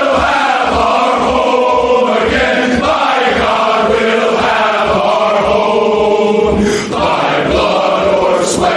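A song's chorus sung by male voices in a chant-like choir, over a steady low drum beat.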